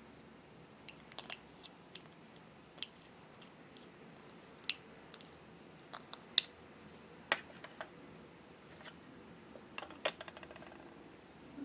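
Small plastic toy kitchen pieces clicking and tapping as fingers handle a tiny ladle, pot and lid: scattered single light clicks, then a quick run of small rattling ticks about ten seconds in as the lid is set on the pot.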